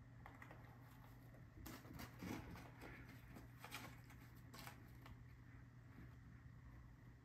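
Faint, irregular soft scuffling and patting of a kitten tussling with a ball on carpet, starting about a second and a half in.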